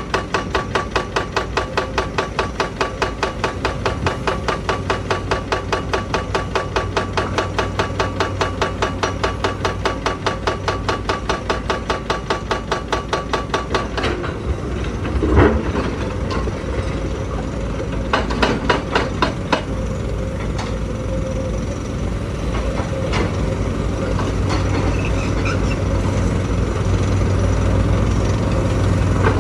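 Excavator-mounted hydraulic breaker hammering rock in rapid, steady blows, stopping about halfway through. After that the excavator's diesel engine runs on, with scattered clanks and knocks of rock and steel, including one louder bang just after the hammering ends.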